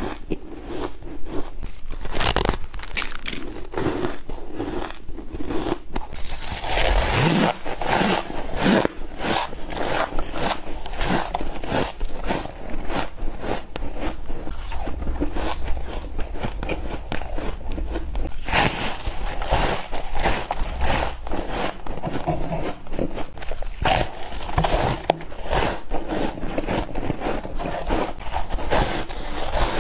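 A person biting and chewing frozen ice, a dense run of crunches. About six seconds in the sound shifts to soft, snow-like frozen ice, which gives a brighter, hissier crunch.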